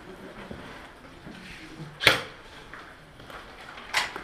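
Two sharp shots from an airsoft gun, close by, about two seconds apart.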